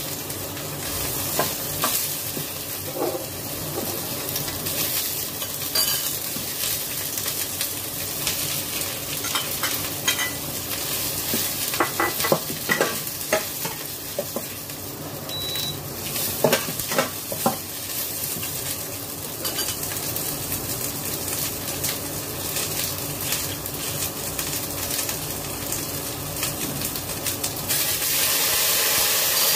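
Bamboo shoots sizzling as they are sautéed in a stainless steel wok, with a spatula scraping and clicking against the pan as they are stirred. Near the end the sizzle grows louder as a spoonful of liquid is poured into the hot pan.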